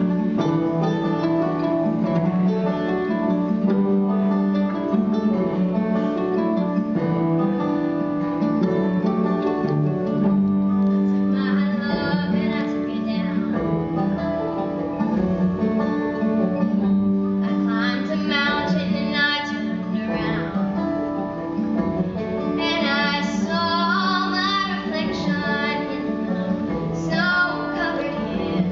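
Acoustic guitar accompaniment playing a gentle ballad, with a young woman's solo voice coming in and singing over it from about eleven seconds in.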